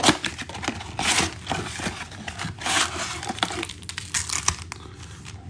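A cardboard trading-card box being torn open and handled: several rustling, crinkling tears with light clicks and knocks between them.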